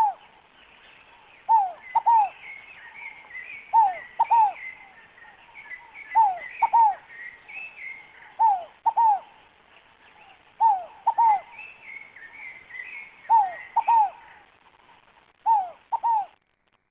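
Scaled dove (rolinha fogo-apagou) cooing: two-note calls repeated about every two seconds, each note a short downward-sliding coo. Fainter high twittering from other small birds runs underneath.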